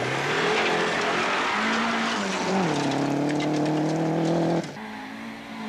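Rally car engine running hard on a loose gravel stage, with gravel and tyres hissing. The engine note drops about halfway through and then holds steady, and the sound cuts off suddenly near the end, leaving a quieter engine.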